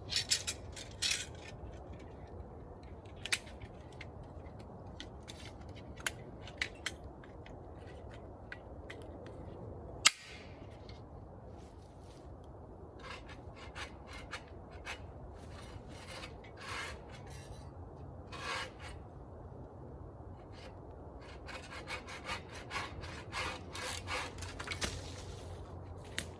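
Low-hanging tree branches being cleared by hand: twigs snapping and crackling, with one sharp loud crack about ten seconds in, and runs of short rasping strokes against wood later on.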